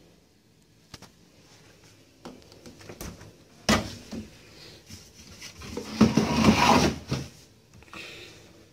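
A small refrigerator's door being pulled open, with a sudden sound from the seal letting go a little before halfway. About two seconds later comes a louder second of rustling and knocking.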